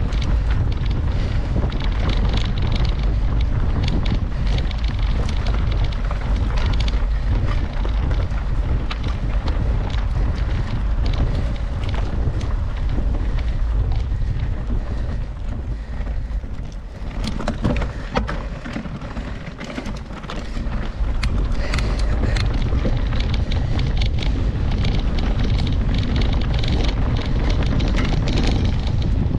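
Wind buffeting the microphone of a camera riding along on a mountain bike, a loud low rumble with frequent rattles and knocks from the bike over rough trail. It eases for a few seconds about two-thirds of the way through, then picks up again.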